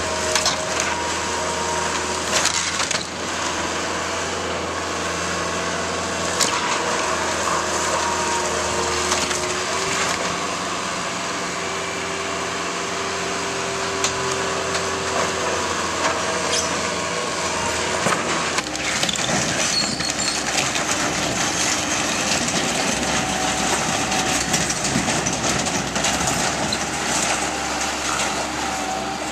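Bobcat 753 skid-steer loader's diesel engine running as it tears down a wood-framed sheet-metal shed, with wood cracking and splintering and crushing debris over the engine.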